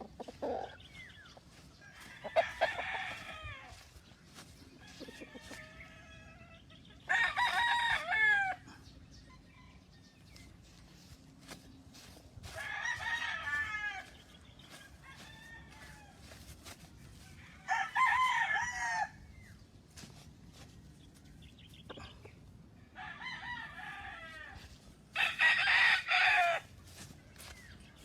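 Roosters crowing in turn, about six crows a few seconds apart, some loud and close and some fainter and farther off, with chicken clucks between them.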